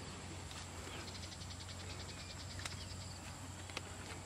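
A high, rapid pulsed animal trill, about ten pulses a second, over a steady low hum, with two sharp clicks in the second half.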